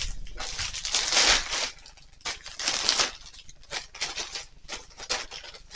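Plastic packaging being handled, rustling and crinkling, in a long stretch through the first second and a half, then in shorter separate bursts.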